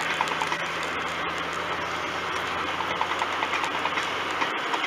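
Steady road and engine noise of a car driving on a highway, heard from inside the cabin, with a low even engine hum.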